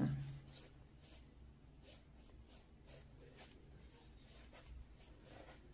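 Soft clicking and rubbing of metal knitting needles working fluffy mink-down yarn as stitches are knitted, with a few scattered light ticks.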